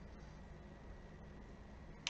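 Near silence: faint room hiss with a faint steady high tone and low hum.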